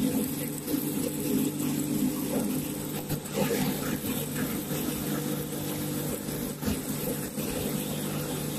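Steady hum of running corn-extrusion machinery, the extruder and the grinder's suction blower, with irregular rattling and scraping as a metal scoop on a suction hose draws extruded corn puffs up into the grinder.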